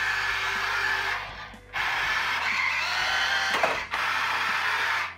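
Project Mc2 H2O remote-control toy car's electric drive motor whirring as it is driven, in three runs with a short break a little after a second and a brief one past three and a half seconds.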